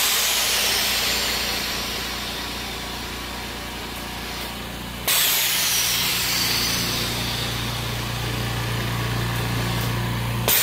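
DIY oxygen concentrator running: a steady compressor hum under a loud rush of air that starts suddenly at the beginning and again about five seconds in, each rush fading away slowly. The rushes are the molecular sieve beds venting their exhaust as the valves switch from one bed to the other.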